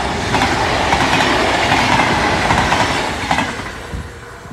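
Dutch Railways (NS) double-deck electric passenger train passing close at speed, its wheels running on the rails. The noise is loudest for the first three seconds and fades away in the last second as the train moves off.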